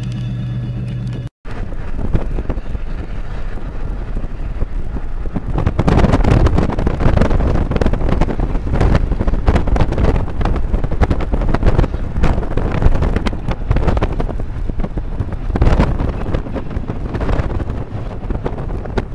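A Union Pacific diesel locomotive's engine running steadily for about a second, then after a cut, loud wind buffeting the microphone with vehicle noise underneath.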